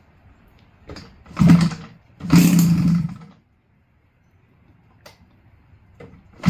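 DLE 222 two-stroke gas engine of a giant-scale RC airplane catching in a few short bursts, the longest about a second, and dying between them, with near silence in the gaps: repeated start attempts before it settles into running.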